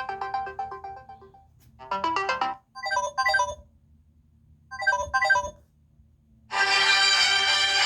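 Samsung Galaxy A40 ringtones: a melodic tone fading out, then short bursts of a few notes repeated with pauses between them. A fuller, sustained tone with many notes starts near the end.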